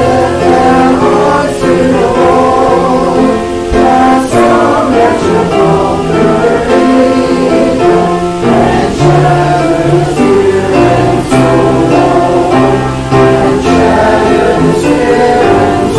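A congregation singing a hymn together in unison, accompanied by instruments, the notes held and moving step by step.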